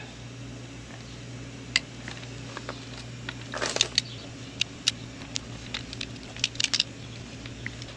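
Torque wrench and socket clicking on hub bolts, a few sharp clicks at a time with pauses between, as each bolt is brought to its first-stage torque of 30. A steady low hum runs underneath.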